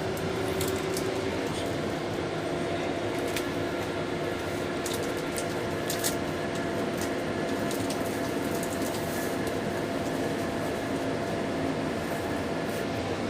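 Steady hum and hiss inside a stopped subway car, with a couple of faint steady tones and scattered small clicks.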